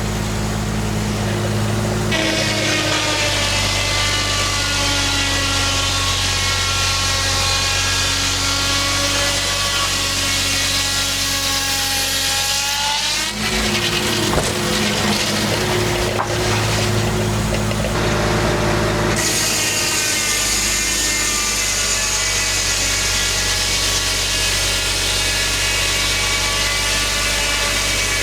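Homemade circular sawmill sawing a white pine log: the whine sinks slowly in pitch as the blade loads up in the cut. About thirteen seconds in the cut ends and a lower, steady running hum is left. Sawing starts again about twenty seconds in.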